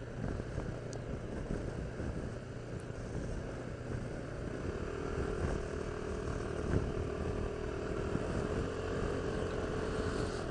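Motorcycle engine running and wind noise while riding at a steady road speed; about halfway through a steady engine hum comes in.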